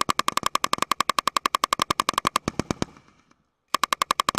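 Machine gun firing a long automatic burst at about ten rounds a second. The burst stops about two and a half seconds in and echoes die away, then another burst starts near the end.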